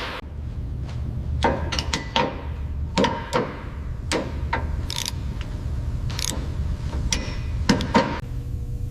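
Irregular knocks and clanks of metal tools and parts being handled, about a dozen of them, over a low steady hum.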